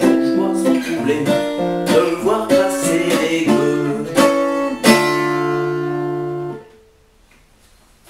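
Acoustic guitar playing the closing bars of a song. It ends on a strummed chord about five seconds in that rings for over a second, then cuts off suddenly.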